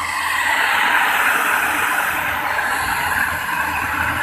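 The speaker of a CRT colour television giving a steady hissing rush instead of clear programme sound. This is the sign of a mistuned audio channel, which the repairer traces to the set's sound system being set to I where it should be BG.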